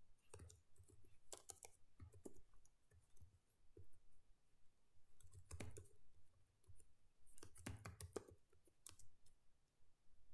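Faint computer keyboard typing: scattered key clicks in short runs, as a terminal command is typed and entered.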